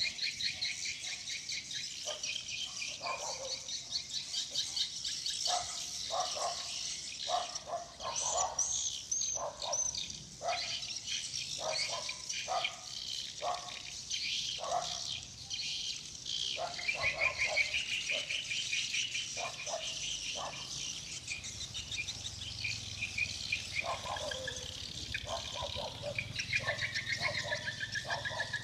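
Swiftlet lure sound of swiftlet calls: continuous rapid high-pitched twittering trills, with short lower chirps repeating about once a second that drop out for several seconds after the middle.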